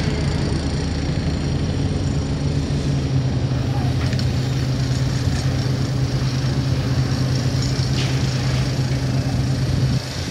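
Terex 220-ton mobile crane's diesel engine running steadily under load as it hoists a tower-crane section, a loud, even drone that drops in level about ten seconds in.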